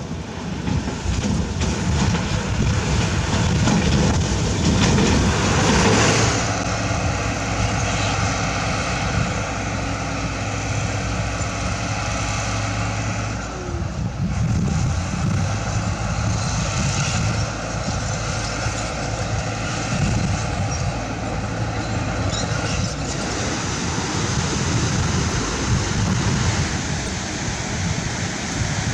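Heavy diesel construction machinery running: a steady engine drone holding an even pitch for much of the time, with a brief louder rush of noise about six seconds in.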